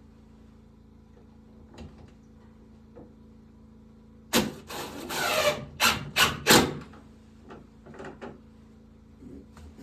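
Wood knocking and scraping: a cluster of loud knocks with a scrape among them about halfway through, then a few lighter knocks, over a faint steady hum.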